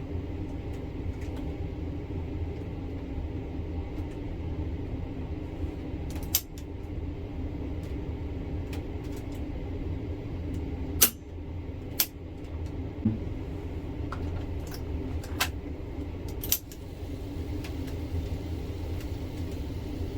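Cassette deck tape transport running with a steady whir while its transport keys are clicked about five times, the running sound dropping briefly after some presses as it switches modes. The reel drive is being tested after the take-up spindle was reseated, and it now works.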